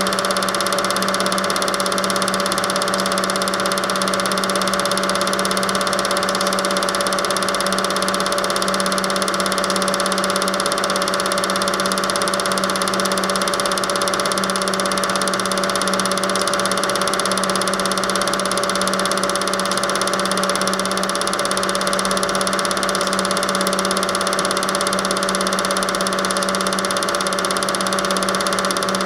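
Steady, unchanging whirr of a Super 8 film projector running, with a constant low hum and a higher mechanical drone.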